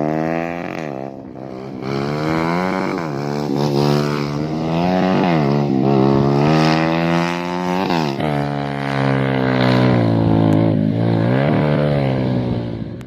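Motorcycle engine being revved over and over, its pitch dipping and climbing again every second or two.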